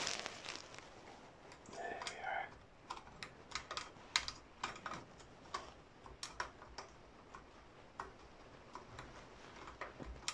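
Metal scriber scratching and clicking in the holes of a model traction engine's spectacle plate as it marks hole positions onto the copper boiler: a run of faint, irregular light clicks, a few a second.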